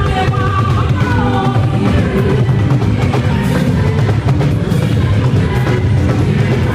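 Music with drums and a heavy bass, playing loudly and steadily.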